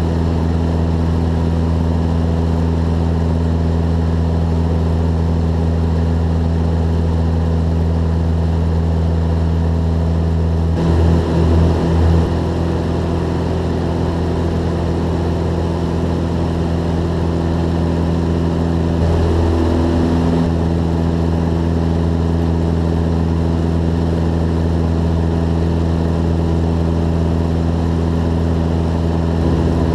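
Jabiru J170's four-cylinder Jabiru 2200 engine and propeller running in cruise, heard inside the small cabin as a loud, steady drone. Its note shifts briefly about eleven seconds in and again near twenty seconds.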